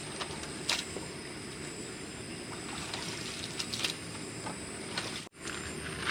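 Steady rain with scattered sharp drips. The sound drops out for a moment about five seconds in.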